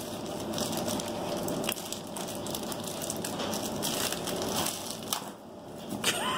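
Thin plastic courier mailer being torn open and crumpled by hand: continuous crinkling and crackling of the plastic, easing off briefly about five seconds in before a few sharp crackles.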